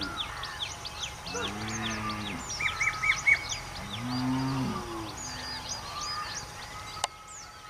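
Cows mooing: two long, low moos a couple of seconds apart, with small birds chirping throughout. A sharp click near the end.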